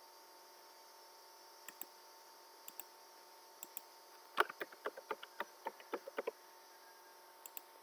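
Computer keyboard being typed, a quick run of about a dozen keystrokes entering an eight-digit Wi-Fi password. Before and after it come mouse clicks, each a press-and-release pair, about once a second, over a faint steady hum.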